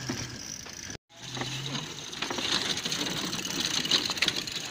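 Rattling and road noise of an electric becak (cycle rickshaw) being ridden over a rough gravel surface, with many small clicks and knocks from its frame and body. The sound cuts out briefly about a second in, then comes back busier.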